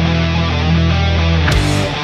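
Heavy rock music with electric guitar: a held chord, then a sudden change to a choppier rhythmic section about one and a half seconds in.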